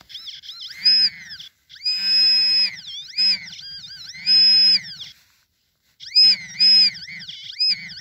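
A handheld metal-detector pinpointer sounding off in short bursts of high electronic warbling tone over a low buzz, coming and going as its tip is pushed through loose soil: it is alerting on a small buried metal target. The bursts stop for about a second in the middle, then return.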